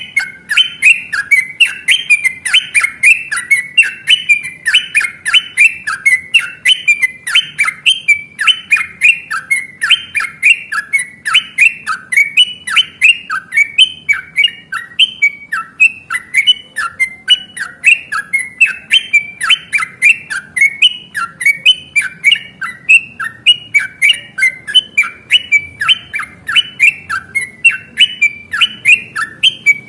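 Yellow-vented bulbul (trucukan) singing a long, unbroken run of rapid, bubbly repeated phrases, about three a second.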